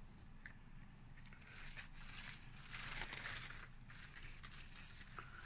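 Faint rustling and crinkling of drying, end-of-season cucumber leaves and vines handled by hand, strongest a little past halfway, with a couple of small clicks.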